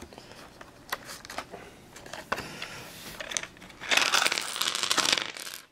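Clicks and crinkles from a clear plastic dice box being opened. About four seconds in come over a second of loud clattering as a 14-piece set of polyhedral dice tumbles out onto a tiled tabletop.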